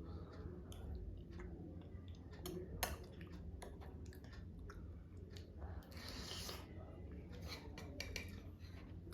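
A person chewing masala dosa, with small wet mouth clicks and one sharp click about three seconds in. A brief rustling noise comes a little past halfway, over a low steady hum.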